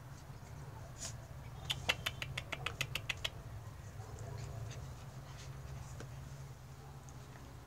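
Puppies playing, with a quick run of about ten sharp clicks and taps, around six a second, a little under two seconds in, over a steady low hum.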